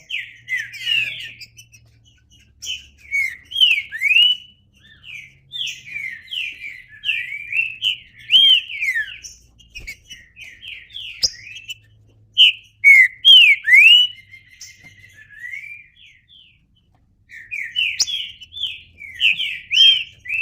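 Green-winged saltator (trinca-ferro) singing: phrase after phrase of quick, sweeping whistled notes, with a short pause about three-quarters of the way through.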